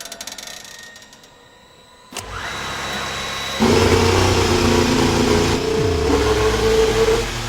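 Aston Martin's Honda Formula 1 V6 turbo hybrid power unit being started: faint ticking, then about two seconds in a rising whine as it is spun up, and a second and a half later the engine fires and runs at a steady idle.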